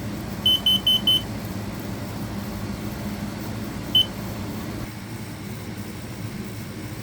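Kidde i12010SCO combination smoke and carbon-monoxide alarm sounding its carbon-monoxide alarm: four quick high beeps about half a second in, then a single beep about four seconds in. A steady low hum runs underneath.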